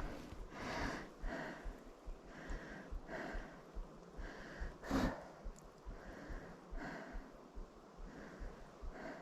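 A hiker breathing hard while walking, with soft, hushing breaths that come in a steady rhythm. A louder breath comes about five seconds in.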